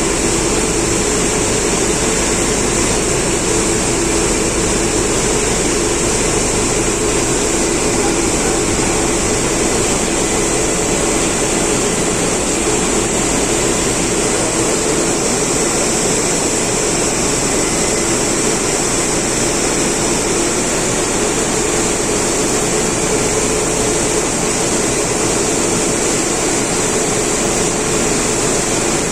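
Flour mill running with its large dust-extraction vacuum cleaner, a loud, steady mechanical roar with a high whine that does not change.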